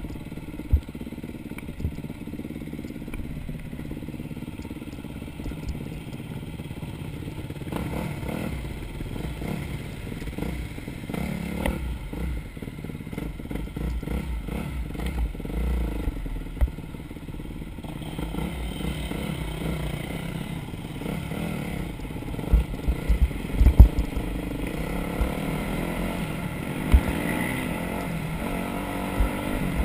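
Off-road vehicle engine running steadily on a rough trail, with clatter and knocks from the ride throughout and a cluster of sharp thumps about three quarters of the way through.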